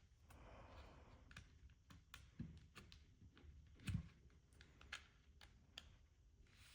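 Faint small plastic clicks and a brief scrape as a plastic pry tool works along the seam of an LG Magic Remote's plastic case, its clips letting go, with two duller knocks, the louder one about four seconds in.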